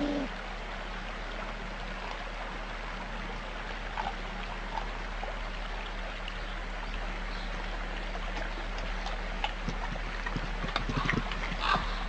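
Grey wolves feeding on a carcass: scattered clicks and crunches of chewing and tearing meat over a steady hiss and hum. The chewing gets busier toward the end, where short, repeated snarls begin.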